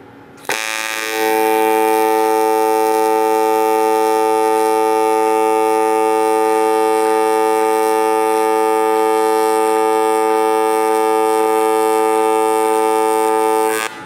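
AC TIG welding arc on aluminum plate, run at high amperage: a loud, steady buzz that starts about half a second in with a brief hiss, settles into an even buzz a moment later, and cuts off abruptly just before the end.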